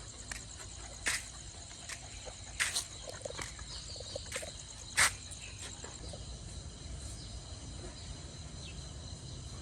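Insects chirping in a steady high drone with a fast pulsing trill, and a few sharp knocks, the loudest about five seconds in.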